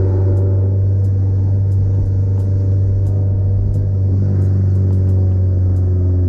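Porsche 944's four-cylinder engine running through a 2.5-inch Lindsey Racing exhaust with no catalytic converter and no mufflers, droning steadily at a near-constant speed while the car cruises.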